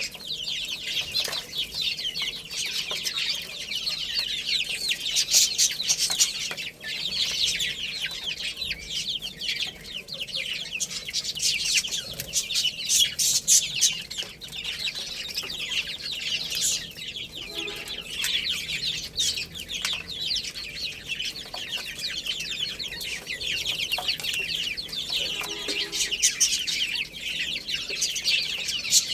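A group of baby chicks peeping continuously, a dense chorus of short, high-pitched cheeps. A lower call is heard briefly twice, around the middle and later on.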